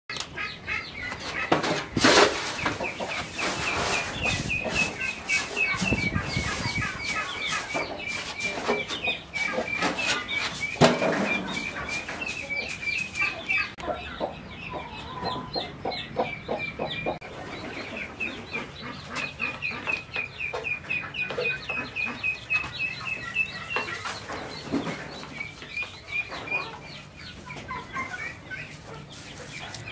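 Chickens clucking in a coop, over a running chorus of short, rapid high chirps. A couple of knocks stand out, one about two seconds in and a louder one around eleven seconds.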